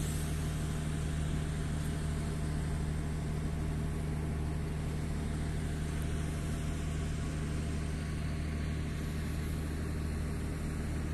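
An engine idling steadily nearby, a low even drone that does not change.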